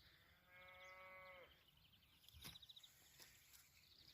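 A calf moos once, faintly: a drawn-out call of about a second that drops in pitch at the end.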